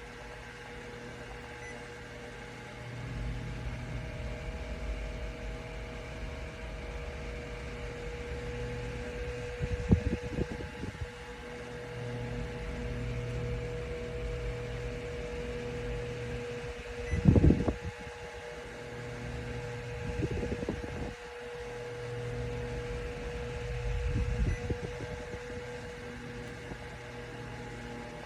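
Orteen 9-inch portable rechargeable fan running: a steady motor whine with a low hum that swells and fades every few seconds. Several short low bumps come through, the loudest about two-thirds of the way in.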